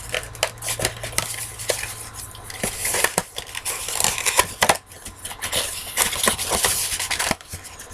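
Small cardboard product box being handled and turned in the hands, its flap worked at: irregular crackling, scraping and tapping of the packaging.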